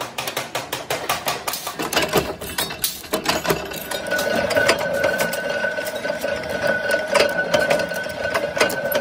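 Rapid metallic clicking and tapping of workshop metalwork on sheet-metal clip parts. About four seconds in, a steady machine hum with a whine joins it.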